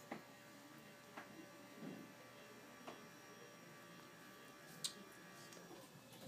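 Faint, steady electrical hum and buzz in a small room, with a few light clicks and knocks.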